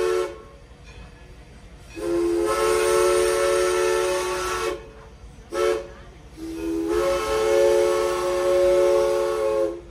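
Steam whistle of East Broad Top No. 16, a steam locomotive, sounding a chord of several notes in blasts: the tail of one long blast, then a second long blast, a short toot and a final long blast. This long-long-short-long pattern is the road-crossing whistle signal.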